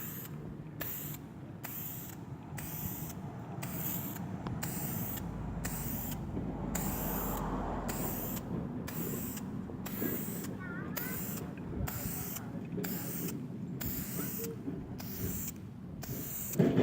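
Aerosol clear coat spray can hissing in short, regular spurts, a bit more than one a second, as the headlight lens is coated in passes. A steady low rumble runs underneath.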